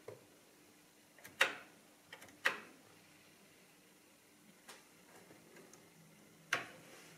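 Keys of an ELKA 6521 electronic calculator being pressed: a few sharp mechanical clicks, each with a short ringing tail, spaced a second or more apart, the loudest about one and a half and two and a half seconds in and another near the end, over a faint steady hum.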